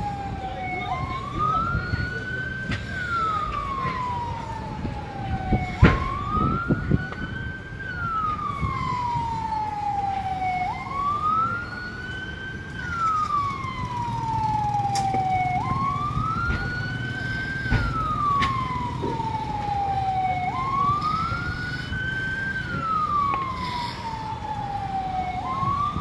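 Siren wailing in a slow repeating cycle. About every five seconds its pitch climbs quickly, then slides slowly back down, five times over, with a low rumble of background noise underneath.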